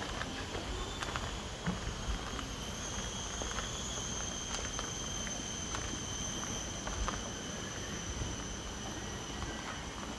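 Tropical insects droning at one steady high pitch, over a low rumble and scattered light clicks.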